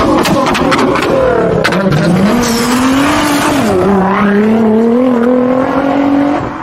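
Car engine revving hard with sharp exhaust pops and crackles in the first two seconds. It then holds a high engine note that rises, dips and wavers, as in a burnout, and fades out near the end.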